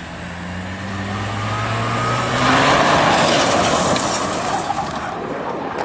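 A car engine running hard as the car slides sideways on a gravel road. About two and a half seconds in, the spinning tyres spraying gravel and dust become the loudest sound, then fade as the car passes.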